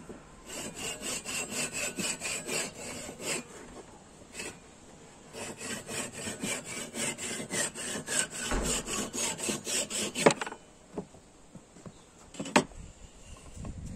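Japanese pull saw cutting hardwood flush against a wooden mallet head, with quick even strokes at about four a second. It saws for about three seconds, pauses, then saws for about five seconds more and stops sharply. A couple of light knocks follow near the end.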